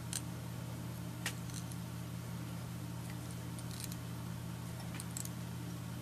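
Quiet room with a steady low hum, and a few faint small clicks and ticks from fingers handling the fly and thread: one right at the start, one about a second in, and a pair near the end.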